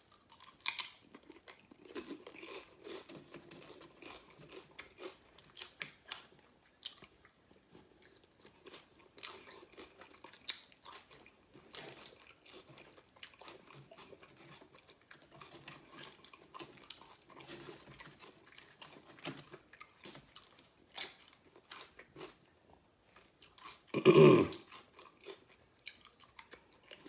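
Crunchy tortilla chips being bitten and chewed close to the microphone: a long run of small crackling crunches. About three seconds before the end comes one short, loud, voice-like burst.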